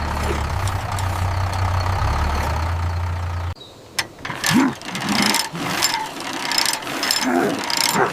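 Cartoon tractor engine idling with a steady low hum, cut off abruptly about three and a half seconds in. It is followed by a string of short knocks and voice-like noises.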